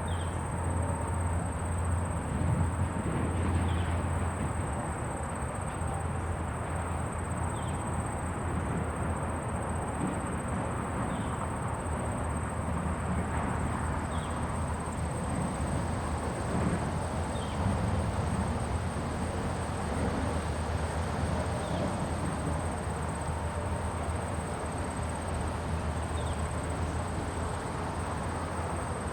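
Countryside ambience: a steady high-pitched insect drone over a low, steady rumble, with a short high chirp repeating about every three to four seconds.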